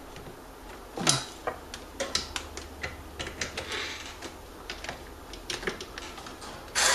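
Irregular light clicks and taps of a hand tool, a screwdriver, being handled and worked. Near the end a much louder steady sound cuts in abruptly.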